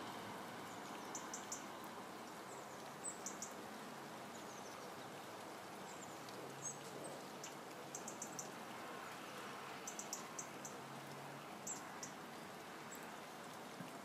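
Steady hiss of rain, with short, high ticks from a small bird, coming in quick clusters of two to four every couple of seconds.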